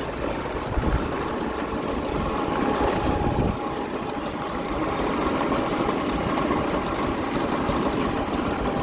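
A vehicle's engine running steadily while driving along, with continuous road and wind noise.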